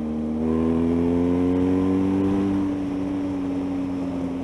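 Motorcycle engine running through a newly fitted Akrapovic aftermarket exhaust, heard from the saddle while riding. It pulls up gradually in revs for about two and a half seconds, then holds a steady speed.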